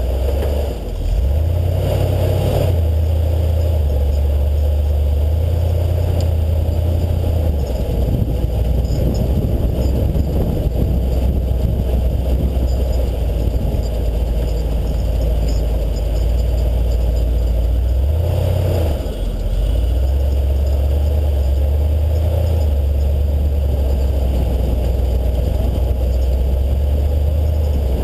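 Off-road 4x4's engine running steadily as the truck drives, a low drone whose pitch changes briefly about a second in and again around 18 seconds in.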